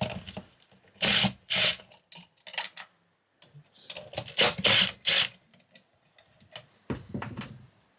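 Power driver spinning in short bursts, two and then three, loosening fasteners to disconnect the contactors, with small clicks of parts being handled in between.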